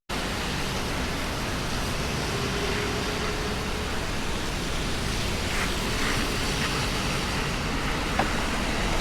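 Steady rushing road noise of riding in traffic on a wet road in the rain, with a few faint clicks and taps in the second half.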